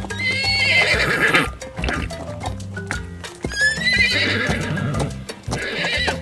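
A horse whinnying twice, two long high calls a few seconds apart, over background music.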